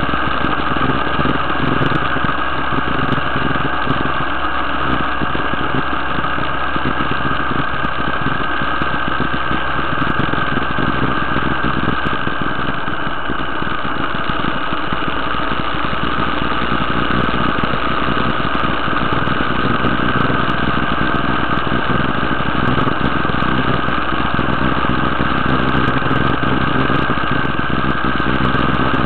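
Motorcycle engine running steadily at an even cruising speed while riding along a road, with no marked revving or gear changes.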